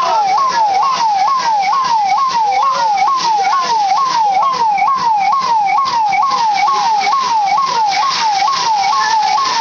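Police siren wailing in a fast repeating cycle, a little over two a second, each a quick rise and then a falling tone, over the steady hiss of water-cannon jets.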